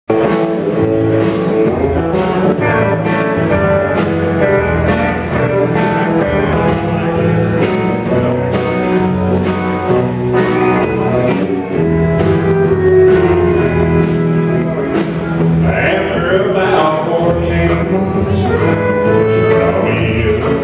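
Live country band playing with a steady drumbeat, electric guitar and keyboard. A higher, bending melodic line comes in about three-quarters of the way through.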